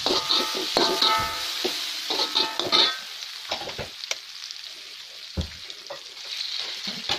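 Slotted metal spatula stirring and scraping onions and chilli paste around a steel wok, with frying sizzle. Busiest in the first three seconds, then quieter, with a single knock about five seconds in as an egg is cracked and dropped into the wok.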